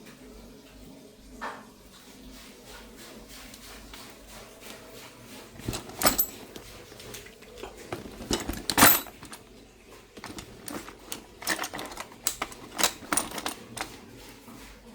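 Scattered metal clinks and knocks from tools and parts while a washing machine's springs are being replaced: two louder clanks about six and nine seconds in, then a run of lighter clicks.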